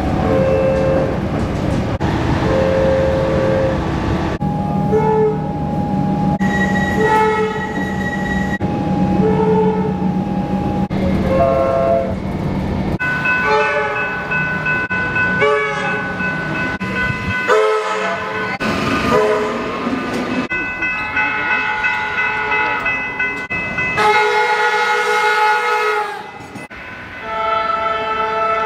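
Comeng electric suburban train horns in a run of spliced clips. Short repeated blasts alternate with longer held blasts, each a chord of several steady tones, over the low rumble of the train.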